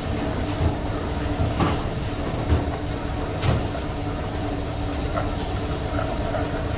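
Steady mechanical hum and rumble of running workshop machinery, with a few light knocks, the sharpest about two and a half seconds in.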